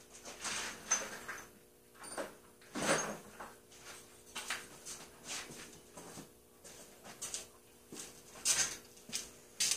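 Heavy breathing through a dust mask, a breathy rasp coming and going about once a second, with a few light handling clicks and a faint steady hum underneath.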